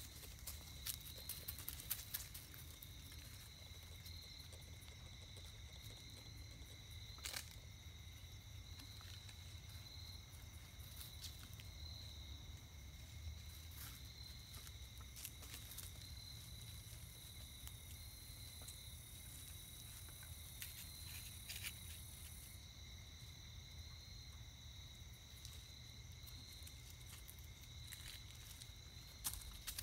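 Faint steady insect chorus: a continuous high trill with a slight regular pulse, with scattered soft clicks and rustles over a low outdoor rumble.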